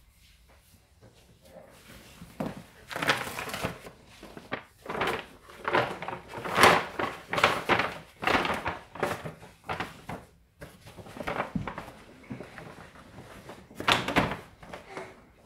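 Paper crinkling and rustling as gift wrapping paper is handled and folded over bottles, in irregular spells with a few dull knocks, louder about halfway through and again near the end.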